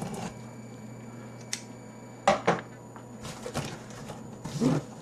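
Cardboard shipping box being handled and its top flaps pulled open: a few scattered knocks and cardboard rustling and scraping, with two sharper thumps about two and a half seconds in.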